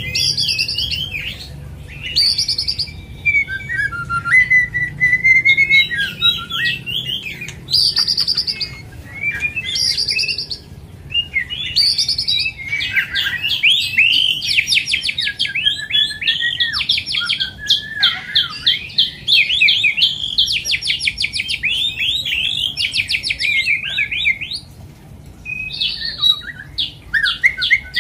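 White-rumped shama (murai batu) singing a long, varied song: separate whistled phrases with sliding pitch, then from about twelve seconds in long runs of fast repeated notes, with a short pause near the end before it starts again.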